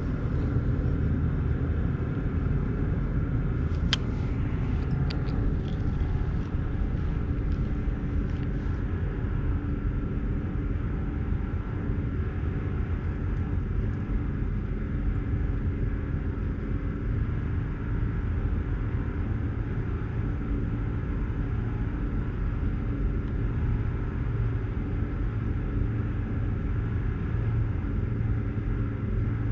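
An engine running steadily with a low drone, with a few light sharp clicks about four to eight seconds in.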